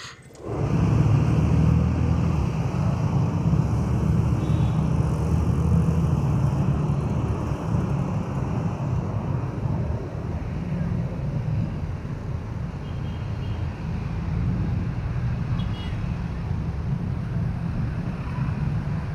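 Steady low rumble of vehicle and wind noise that starts suddenly about half a second in.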